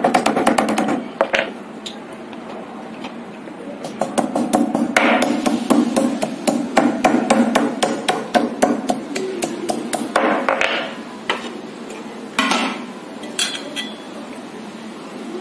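A hand-held grinding stone knocks again and again on a stone slab, crushing pieces of hog plum. The knocks come quickly in several bursts with short pauses between.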